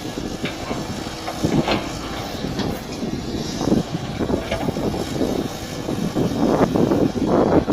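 Mini excavator engine running steadily, with a few short knocks or clanks scattered through it.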